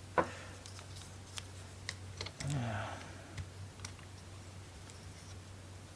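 Light clicks and taps of laser-cut wooden model parts being handled and pressed back into place, scattered through the first few seconds and sparse after that.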